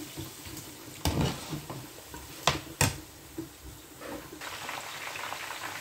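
A glass pot lid knocking sharply against the pot three times as it is handled and lifted off. About four seconds in, a steady sizzle of turkey pieces deep-frying in hot oil comes up.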